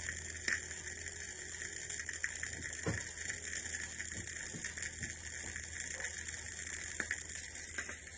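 Crackle, hiss and scattered sharp clicks from the stylus of a 1960s Soviet Rigonda valve radiogram running in the groove of a 78 rpm record without music, over a steady low hum. This is the sound of the record between or past its recorded music, just before the auto stop.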